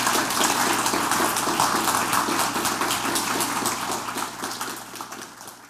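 Audience applauding, a dense patter of many hands clapping that fades out over the last second or two.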